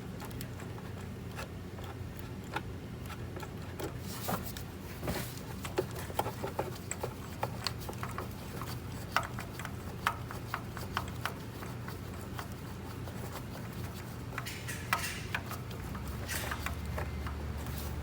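Irregular small metallic clicks and rubbing as a new spark plug is threaded into the cylinder head by hand, over a steady low hum.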